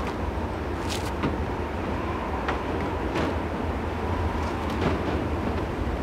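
Strong wind blowing steadily in a storm, a dense rush with a deep rumble underneath and a faint steady whistle. Several sharp knocks and rattles come through it, the loudest about a second in and again near five seconds.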